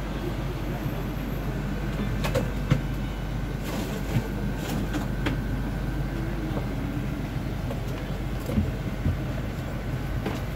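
Busy shop ambience: a steady low hum and rumble with faint distant voices and a few scattered clinks and clicks.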